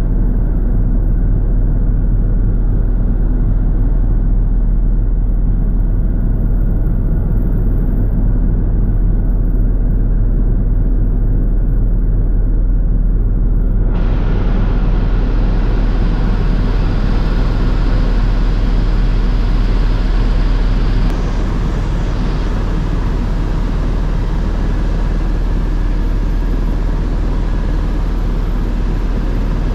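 Steady low drone of a small helicopter's engine and rotor, heard from inside the cabin in flight. About halfway through a hiss joins the drone, and a little later it drops slightly in level.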